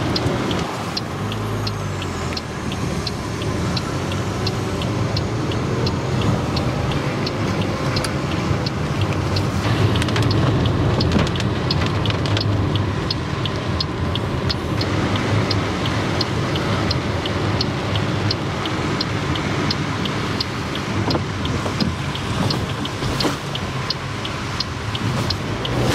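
Car cabin noise while driving on a wet road in the rain: a steady rumble of engine and tyres with hiss from the wet tarmac. A light, even ticking runs through it at about two ticks a second.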